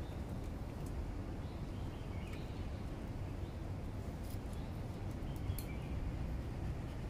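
Outdoor ambience: a steady low rumble on the microphone, with a few faint bird chirps and scattered light clicks.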